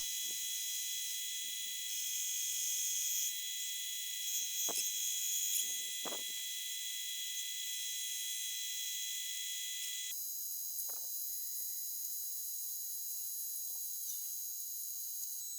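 A machine running with a steady high-pitched whine and hiss, several fixed tones held throughout, and a few faint knocks. The sound changes abruptly about ten seconds in, when its lower part drops away.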